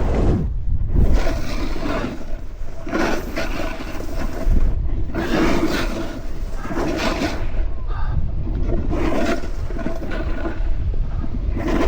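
Snowboard edge scraping and hissing over packed snow through a series of turns, each turn a swell of noise, over a steady low rumble of wind on the helmet-mounted camera's microphone.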